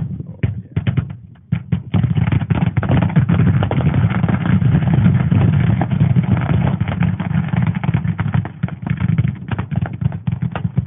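A pile of fireworks being destroyed, going off in a dense, rapid crackle of bangs. The crackle is sparse for the first couple of seconds, then becomes continuous and loud.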